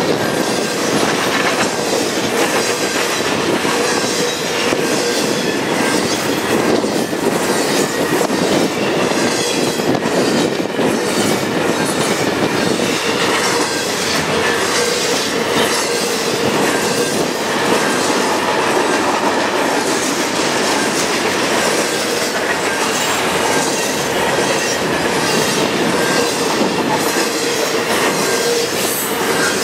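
Double-stack container well cars of a freight train rolling past at speed: a loud, steady rumble of steel wheels on rail, with frequent clacks and a steady whine running through it.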